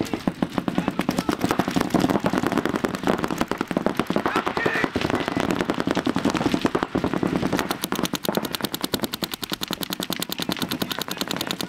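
Paintball markers firing rapid strings of shots, several guns at once, in a near-continuous stream of pops.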